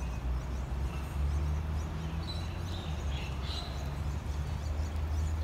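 Outdoor ambience: a steady low hum, with a few short bird chirps around the middle.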